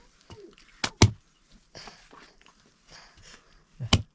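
Sharp knocks: two close together about a second in, the second the loudest, and one more near the end.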